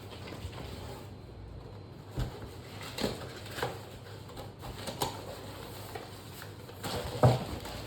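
Shower-filter parts and their packaging being handled: irregular knocks, clicks and rustles, with the loudest knock near the end.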